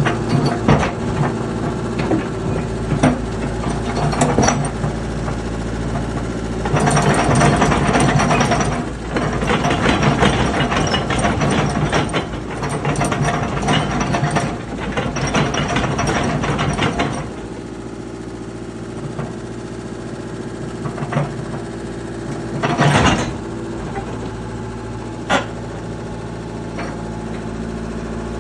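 Komatsu PC78US excavator's diesel engine running steadily. A stretch of louder clanking and rattling runs from about a quarter of the way in to past the middle, and a few sharp knocks come later on.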